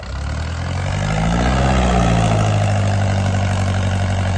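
A truck engine revs up over about a second and a half, then holds loud, steady high revs.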